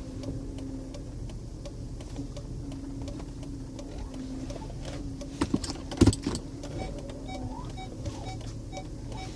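Lincoln Aviator's 4.6 V8 idling, heard from inside the cabin as a steady low hum. Two sharp clicks come about halfway through, followed by faint short beeps repeating evenly about twice a second, typical of the parking sensors.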